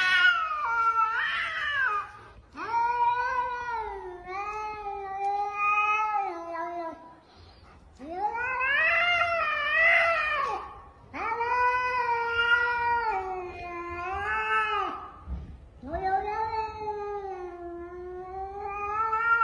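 A cat yowling (caterwauling): about five long drawn-out calls of a few seconds each, rising and falling in pitch, with short breaks between. It is a defensive threat yowl, given face to face with another cat and then a large dog.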